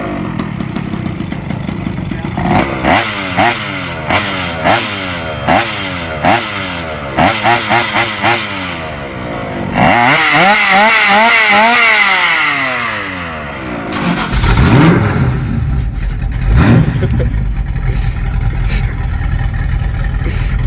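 Go-Ped SGSR 46's small two-stroke engine blipped over and over, each rev falling away, then held at high revs with a wavering pitch for about three seconds. About fourteen seconds in, the much deeper sound of a 1964 Ford GT40's V8 takes over, revving unevenly.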